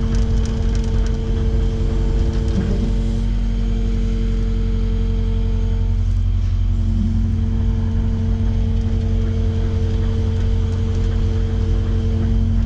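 Kubota KX080-5 excavator's diesel engine running steadily under load with a low drone and a pitched whine, as the machine backs up. The whine drops out for about a second midway, then comes back.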